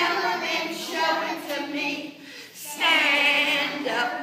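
A group of young children singing together, with a woman's voice among them. There is a brief lull about two seconds in before the singing picks up again.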